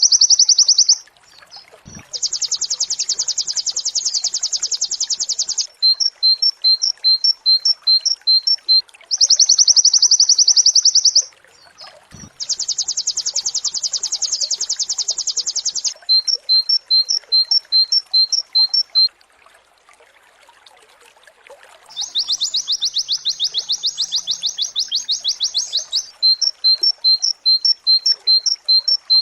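Pleci (white-eye) singing in the rapid-fire 'nembak' style. Long, fast, buzzy high trills of two to three seconds alternate with runs of separate sharp chirps at about three or four a second, and the pattern repeats several times.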